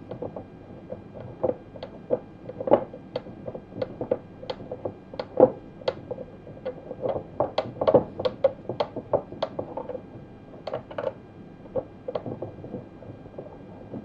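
Irregular small clicks and ticks from a T-handle hex key being twirled between the fingers, driving a small screw into a model aircraft fitting.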